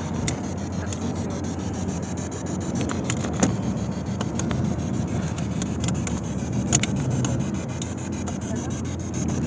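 Car on the move heard from inside the cabin: a steady low road and engine rumble. Two sharp knocks stand out, about three and a half and about seven seconds in.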